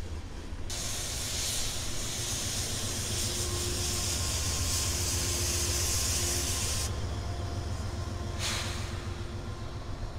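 Diesel locomotives of a CN freight train running past with a steady low rumble. A loud hiss starts abruptly about a second in and cuts off sharply around seven seconds, and a shorter hiss comes near the end.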